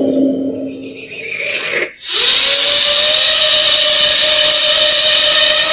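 Music fades out. About two seconds in, a small quadcopter drone's motors spin up and run on with a steady, loud whine.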